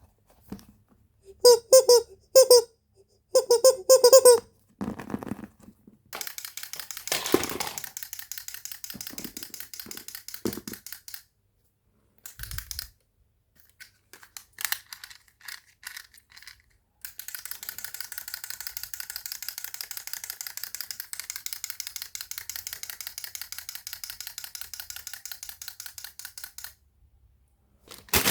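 Toy handling: a few short squeaks early on, then long stretches of fast, even ticking from a small toy mechanism.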